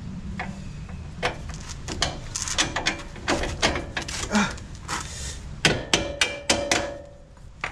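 Irregular metallic knocks and clinks of suspension parts and loose hardware being handled and shifted while a front strut is worked into line with its mounting hole; some strikes ring briefly.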